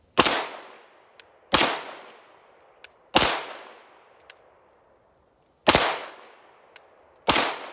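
Five single shots from a short-barrelled 9mm CZ Scorpion pistol (K conversion), fired at an uneven pace, each one a sharp crack with a long echoing tail. A faint tick follows each shot about a second later.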